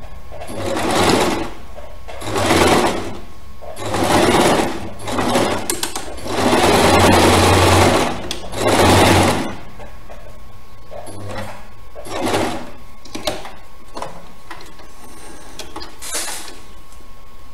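Electric domestic sewing machine stitching a zipper onto lining fabric in short runs: six bursts of stitching in the first ten seconds, the longest about two seconds. After that come fainter scattered clicks and rustles of the work being handled.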